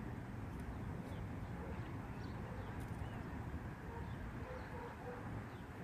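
Outdoor background: a steady low hum with a few faint, short bird chirps scattered through it.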